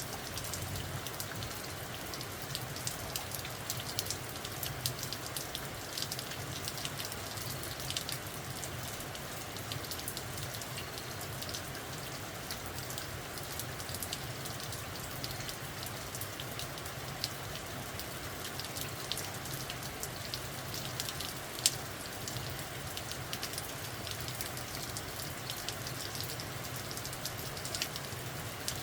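Steady rain falling, with many individual drops ticking on a surface over an even hiss; one drop lands louder about three-quarters of the way through.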